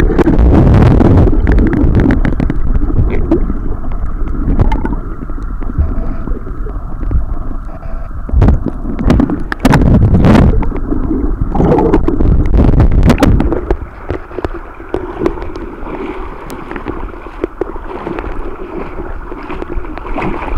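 Muffled water noise picked up by a camera held under the sea surface: a low, churning rumble of moving water with a few sharp knocks near the middle, growing quieter in the last third.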